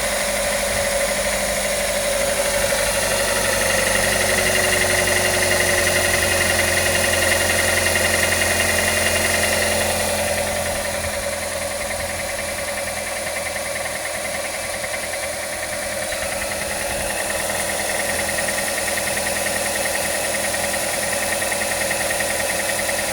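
Nissan NV200 van engine running with a top-end rattle or knock from the valve train. Its sound drops slightly about ten seconds in and picks up again a few seconds later.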